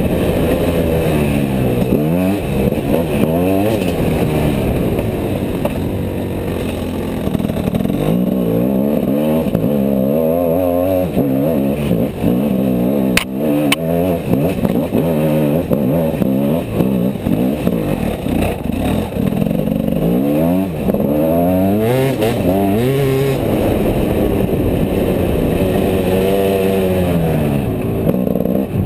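Gas Gas EC enduro motorcycle engine under way off-road, its pitch climbing and dropping again and again as the rider opens and closes the throttle through the gears. A couple of sharp knocks come about thirteen seconds in.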